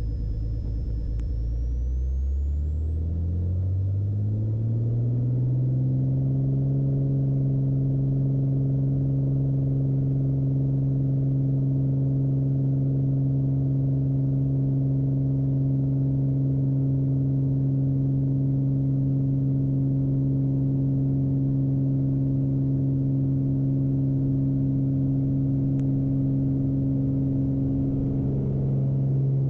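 Beechcraft Bonanza's six-cylinder piston engine and propeller being run up to full takeoff power. The pitch rises over the first six seconds or so, then holds steady at full power through the takeoff roll.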